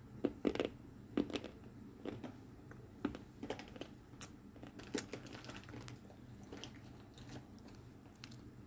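Dry lumps of multani mitti (Fuller's earth clay) handled in a plastic colander: scattered dry clicks, knocks and scrapes as the chunks rub and knock against each other and the basket.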